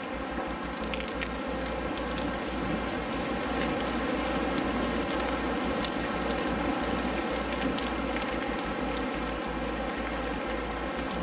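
Steady rain: an even hiss of falling rain with scattered sharp drop ticks, over a faint steady low drone.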